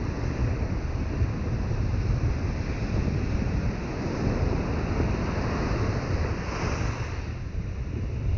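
Ocean surf breaking and washing up the beach, with wind buffeting the microphone in a low rumble. The wash hisses briefly brighter about six and a half seconds in.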